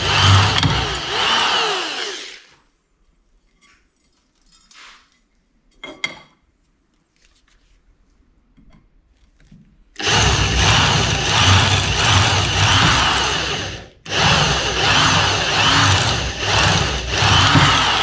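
Corded electric drill boring a hole through a metal bar. It runs for about two seconds and stops, a couple of light knocks follow in the lull, then it drills again from about ten seconds in, pausing briefly near fourteen seconds before carrying on.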